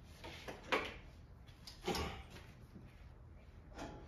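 Faint handling noise with a few short knocks and clatters, as of objects being moved while someone looks for a piece of wire.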